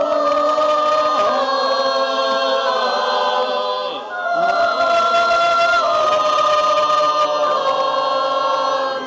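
Church choir singing a cappella in held chords, in two long phrases with a brief dip about four seconds in.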